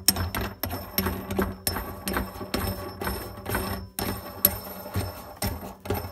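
Brass lock nut being spun by hand up the threaded metal shank of a sink-mounted soap dispenser, giving a run of irregular clicks and small metallic scrapes, several a second, as the nut's threads are worked along.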